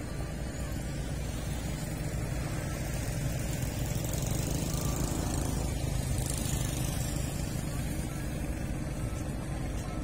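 A steady low engine rumble with a faint hum in it, swelling slightly about halfway through.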